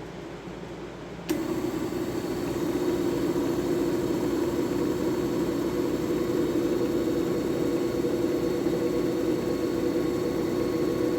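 JFJ Easy Pro disc repair machine running a soft buffing pad over a game disc, the buffing stage after sanding: a steady motor hum with a noisy rush over it. It starts suddenly about a second in and cuts off suddenly about ten seconds later.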